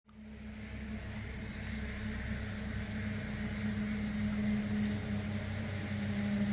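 A steady machine hum with a low tone, starting just after a sudden cut. A few faint ticks come about four to five seconds in.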